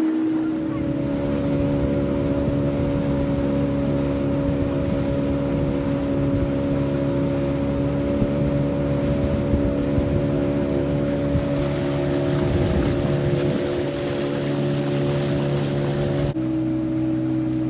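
A motorboat engine running steadily at cruising speed, with a steady rushing of wind and water over it that drops away sharply shortly before the end.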